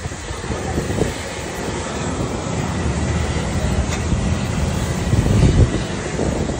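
Steady rumble of aircraft on an airport apron, with a faint high steady whine and wind buffeting the microphone.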